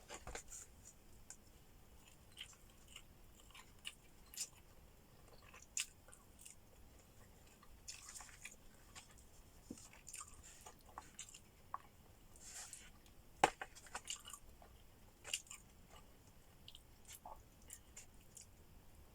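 Faint close-up eating sounds: chewing and biting with scattered crisp crunches and small clicks. One sharper click comes about two-thirds of the way through.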